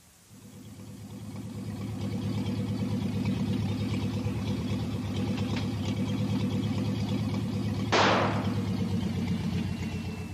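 A car engine fades in and runs steadily with an even pulse as an open convertible is driven. About eight seconds in there is one sudden, loud, short burst of noise, the tyre blowing out, and the engine keeps running after it.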